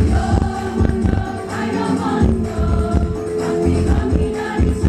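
Women's choir singing over an instrumental accompaniment with a strong bass and a steady beat.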